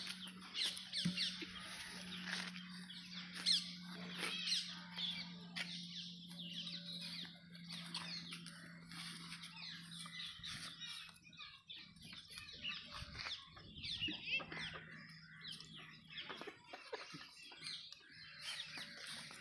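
Birds chirping and calling over and over, over a faint steady low hum that fades near the end.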